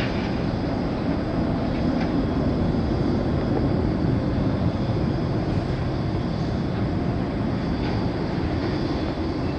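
Jet engines of a large four-engined airliner rumbling steadily as it climbs out overhead after takeoff, a deep noise that eases slightly near the end.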